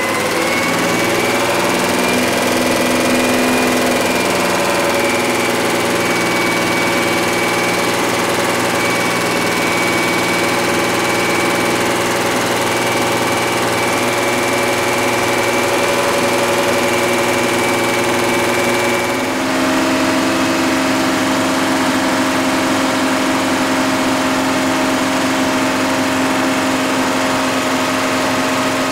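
Freshly rebuilt engine of a 1982 Ford F-150 running steadily at a fast idle to break in its new flat-tappet camshaft. About two-thirds of the way through, its speed steps up and it holds the higher pitch.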